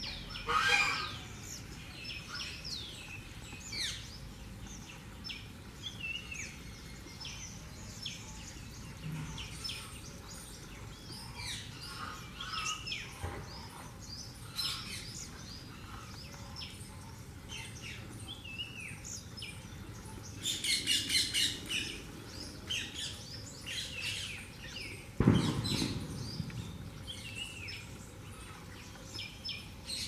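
Rose-ringed parakeets chirping and calling in short, frequent, high notes while they feed, with a loud rapid run of screeches about two-thirds of the way through. A single sudden loud knock comes late on.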